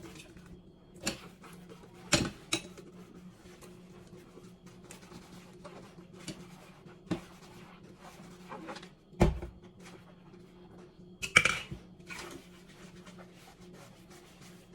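Dishes and utensils being handled: a scattered series of clinks and knocks, the loudest about two seconds in, after nine seconds, and at eleven and a half seconds, over a faint steady hum.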